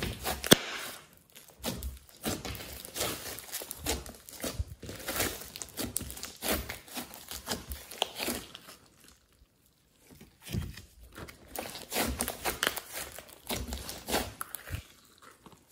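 Hands squeezing, kneading and pulling apart thick slime mixed with clay, glitter and makeup, making irregular sticky crackles and squelches. The handling stops for about a second past halfway, then resumes.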